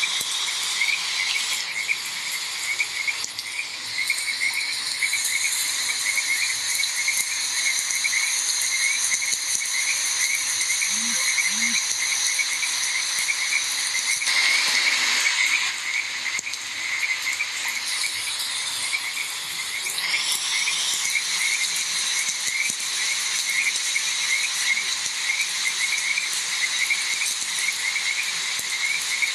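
A frog chorus: many rapid, repeated calls going on without a break, over a high, steady insect drone and a soft hiss. The hiss swells briefly about halfway through.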